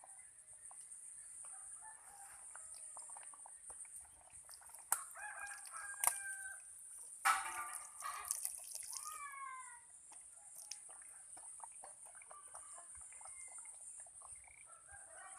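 A rooster crows once, starting about seven seconds in and lasting about two and a half seconds, while chickens cluck softly around it. Two sharp clicks come just before the crow, and a steady high hiss runs underneath.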